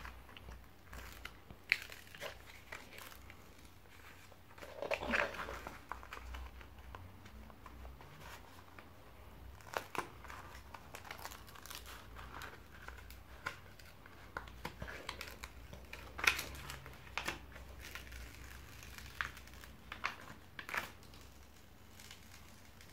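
Quiet paper rustling and crinkling as the protective cover sheet is peeled back off the adhesive canvas of a diamond painting. Scattered short rustles and small clicks, with a longer, louder rustle about five seconds in.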